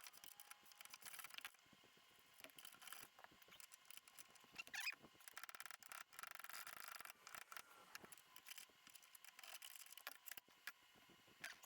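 Faint, irregular clicking and scraping of hand tools on metal suspension parts, with a few short squeaks.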